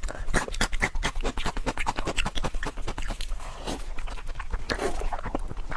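Close-miked wet eating sounds: lips smacking and sucking on a sauce-covered piece of meat, a fast, irregular run of sticky clicks.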